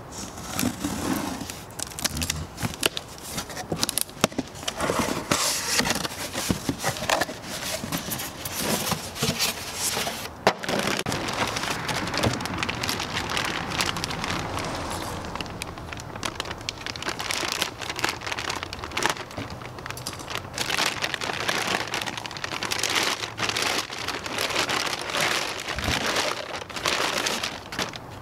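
Cardboard box being slit open along its packing tape with a knife and its flaps pulled back, then a thin plastic bag crinkling and rustling as it is unwrapped from a turbocharger, with many small crackles.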